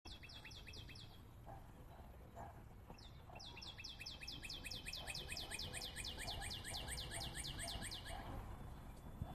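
A bird calling in rapid runs of short, falling chirps, about six a second. There is a brief run at the start, then a longer run of about five seconds from three seconds in, over a low steady background rumble.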